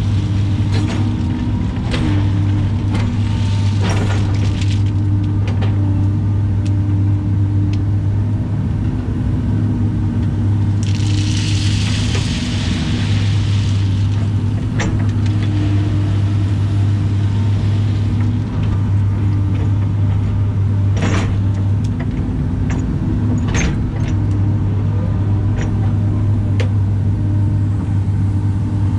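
Caterpillar excavator's diesel engine droning steadily, heard from inside the cab, with a higher hum that comes and goes as the arm and bucket are worked. Scattered knocks of the bucket and rock, and a rushing hiss for a few seconds about a third of the way in.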